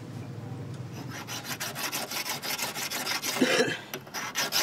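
Small engine running with a fast, even beat.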